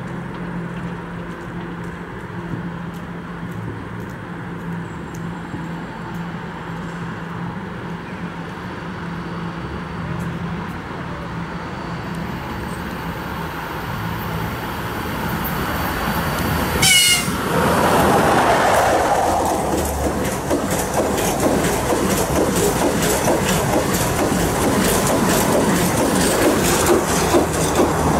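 EP20 dual-current electric locomotive hauling the Strizh Talgo express approaching with a steady low hum that grows louder, then passing close about seventeen seconds in with a sudden loud rush. The Talgo coaches follow, rolling past with rapid clicking of wheels over rail joints.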